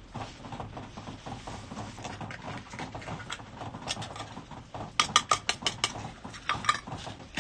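A utensil clinking and scraping against a stainless steel bowl as canned cat food is mixed into dry kibble, with softer clicks at first and a quick run of sharp, ringing clinks, several a second, about five seconds in.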